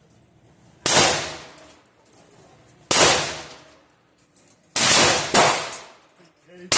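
Five single gunshots fired one at a time, mostly one to two seconds apart, with two in quick succession in the middle. Each shot has a short echoing tail.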